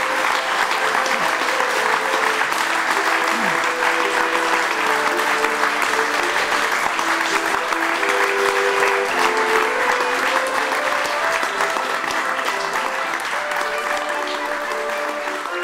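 Audience of children and adults applauding, with background music carrying a slow melody of held notes over the clapping; the clapping thins a little toward the end.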